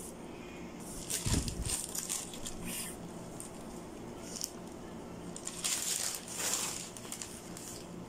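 Plastic garment packaging crinkling and clothes being handled, in two spells of rustling, with a soft low thump about a second in.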